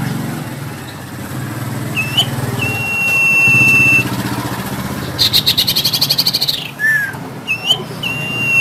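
Male common iora (cipoh) singing: a long, steady, high whistle, then a fast rattling trill, with short rising and falling notes in between. A low, steady engine-like hum runs underneath.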